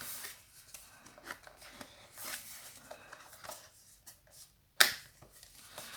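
Strong plastic wrapping on a small cardboard box being handled and picked at: scattered light crinkles and small clicks, with one sharp tap near the end.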